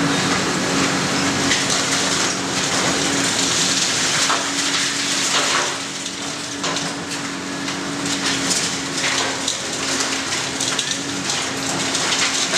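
Excavator demolishing a building's roof edge: concrete and debris crunching and clattering, with a steady hiss of water spray laid on for dust and the machine's engine humming underneath. The level drops a little about six seconds in.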